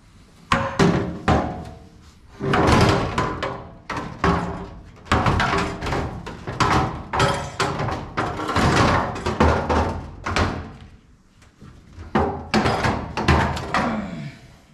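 Custom race seat knocking and thunking against the race car's roll-cage tubing and chassis as it is worked down into the cockpit, a run of irregular clunks with a short lull near the end.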